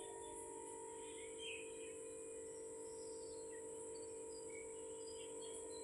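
Faint steady hum with a few short, faint bird chirps scattered through it.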